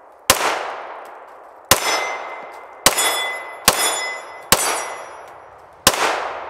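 Six shots from a Girsan MC9T 9mm pistol at an uneven pace, each cracking out with a decaying tail, several followed by a metallic ring from hit steel targets. The sixth shot empties the magazine and the slide locks back.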